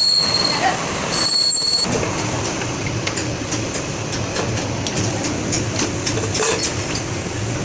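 Ashok Leyland truck running with a noisy gearbox: a high whine that stops about half a second in and comes back briefly, then a low rumble with irregular metallic clicks and rattling.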